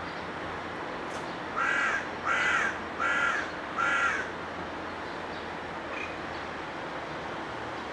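A bird calling four times in a row, each call about half a second long, over a steady background hum.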